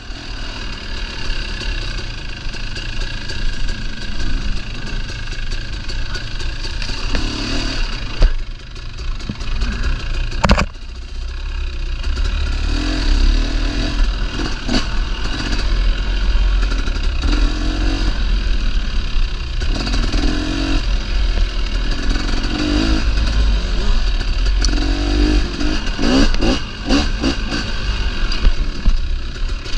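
Dirt bike engine running through a wooded singletrack ride, its note rising and falling as the throttle is worked, over a steady low rumble. There are a couple of sharp knocks about eight and ten seconds in.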